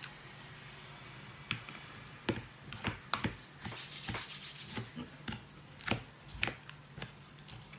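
Fork clicking and scraping in a bowl of leafy salad as food is picked up. A run of irregular sharp clicks and rustles starts about a second and a half in.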